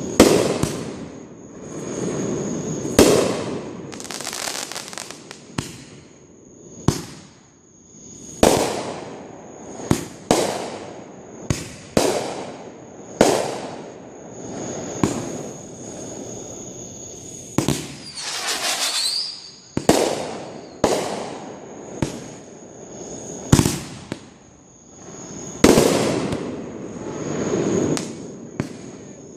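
Fireworks going off: a long run of sharp bangs, one every second or two, each trailing off in crackle and hiss, with a rising whistle about two-thirds of the way through.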